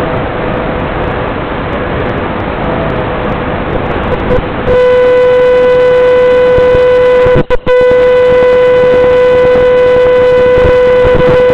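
Hiss of analog FPV link static, then about four and a half seconds in a loud, steady electronic beep begins and holds, dropping out twice briefly: the crashed quadcopter's lost-model buzzer sounding.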